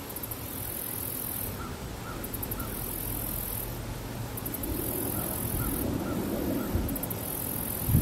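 High buzzing insect song that comes in pulses about a second and a half long, with short breaks between. A small bird gives a few short high notes, three near the start and four in the second half, over a low rumble.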